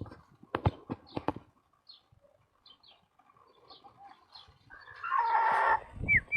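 Hens squawking and flapping their wings while a young dog herds them. A few sharp knocks come in the first second or so, and a loud burst of squawking comes about five seconds in.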